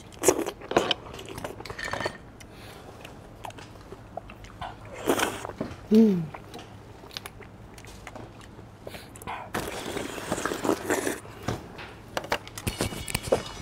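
Eating sounds: chopsticks tapping a small bowl, with slurping and chewing of a soft fish maw dessert in coconut milk. A short falling 'mm' comes about six seconds in.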